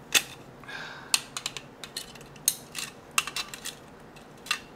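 A screwdriver prying at a plastic battery-charger case and its circuit board: a string of sharp plastic clicks and snaps, with a short scrape about half a second in. The case is refusing to give up its board.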